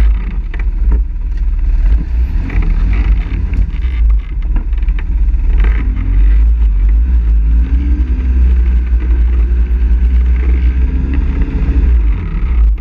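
ATV engines running, with one quad's engine rising and falling in pitch as it is ridden past, and scattered knocks and rattles.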